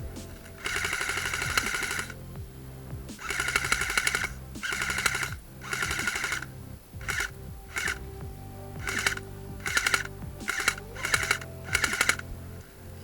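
Airsoft electric gun firing in full-auto bursts, a rapid clatter of shots: a long burst of over a second, then about ten shorter bursts, some only a fraction of a second, over steady background music.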